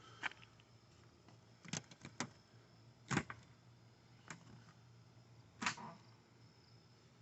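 Six sharp knocks and clicks at irregular intervals over a faint, steady low hum.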